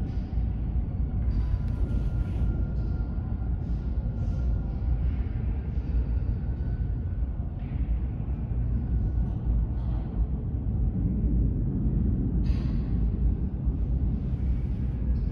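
Steady low rumble of a subway train in the station, with a short hiss about a second and a half in and another about twelve seconds in.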